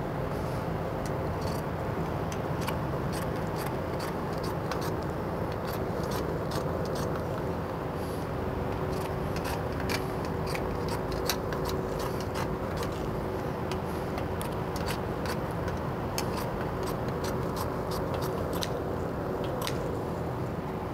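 Scissors cutting burlap over steel seat springs: a long run of small snips and rustles, over a steady hum of shop background noise.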